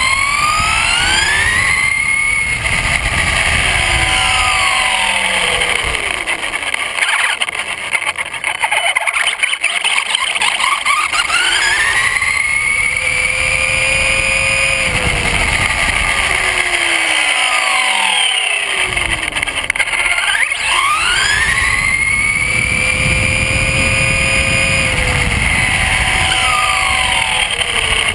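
Traxxas Slash RC truck's brushless electric motor and drivetrain whining, rising in pitch as the truck accelerates, holding at top speed, then falling as it slows, three times over. A low rumble of tyres on asphalt runs under the whine.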